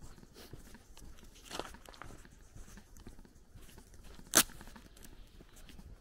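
Footsteps crunching on a gravel road at walking pace, with a single sharp click about four seconds in, the loudest sound.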